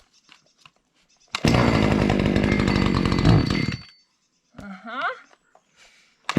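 A cold two-stroke chainsaw engine catches on a pull of the starter cord. It runs for about two and a half seconds, then dies again, not yet warm enough to keep running. A short vocal groan follows about five seconds in.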